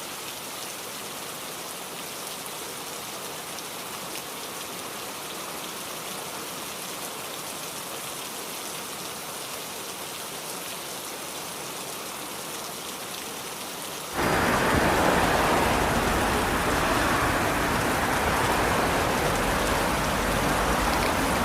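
Steady rain. About fourteen seconds in it suddenly becomes louder and fuller, reaching deeper, like a heavier downpour.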